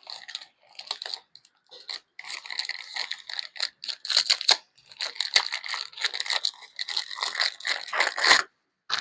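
Packing paper and tape being ripped off and crumpled by hand, a run of irregular crackling and rustling with short pauses.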